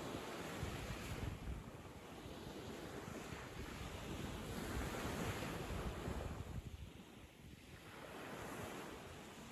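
Ocean waves washing onto a sandy beach, the surf swelling and fading in slow surges, with some low wind rumble on the microphone.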